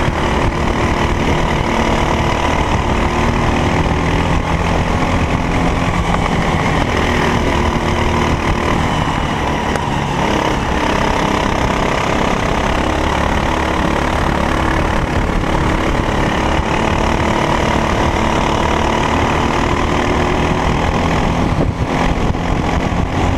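Racing kart engine running continuously, its pitch rising and falling gently with the revs.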